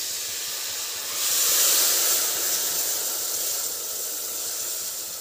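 Onion-and-spice masala in hot mustard oil hissing and sizzling with steam after a little water is poured into the pressure cooker pan. The hiss swells about a second in, then slowly eases.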